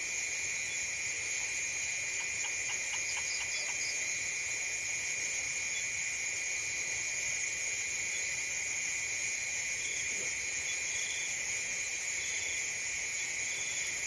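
Dense, steady chorus of insects at dusk, a continuous high-pitched shrill buzz. A short quick series of pulsed calls sounds a few seconds in, and from about two-thirds of the way through a soft short call repeats about once a second.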